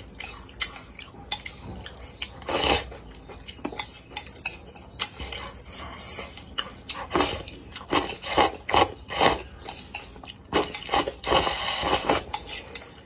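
Wooden chopsticks stirring noodles in broth and knocking and scraping against a stone bowl in a string of short clicks. Near the end comes a longer slurp as noodles are sucked up.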